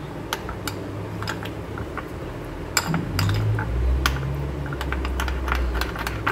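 Metal spoon stirring and scraping in a small glass bowl, mixing cornflour into ghee to make a paste, with light irregular clicks of the spoon against the glass. A low steady hum runs underneath.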